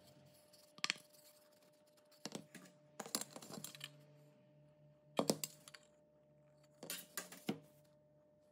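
Clicks and light knocks from a painted wooden T-joint and a try square being handled and set against each other on a tabletop, in a few short clusters, over a faint steady hum.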